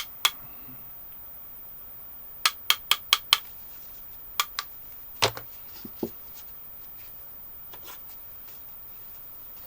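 18650 lithium-ion cells clinking against each other and a hard surface as they are handled and sorted: a single click, a quick run of five clicks about two and a half seconds in, then a few scattered clicks, with quiet after about six seconds.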